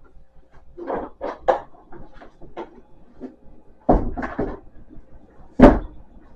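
A series of knocks and clunks from a crock pot being handled and wiped down, with a cluster about four seconds in and the loudest clunk near the end.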